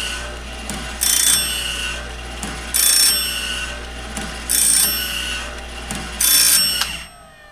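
Woodland Mills bandsaw-blade sharpener running on a 12-volt battery, its motor humming while the grinding wheel and indexing mechanism work the blade tooth by tooth, with a short high-pitched grinding burst about every 1.7 seconds. The whole machine stops about seven seconds in, shutting itself off at the end of its cycle.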